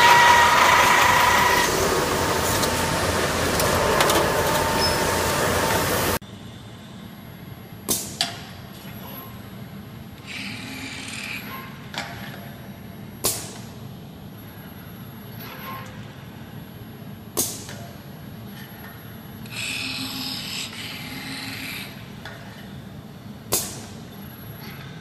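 Loud noise of an automated assembly machine running on a factory floor, with a steady tone, cutting off after about six seconds. Then a quieter cell where a Yaskawa Motoman industrial robot arm and its gripper work a fixture: sharp clicks every few seconds and two short hisses.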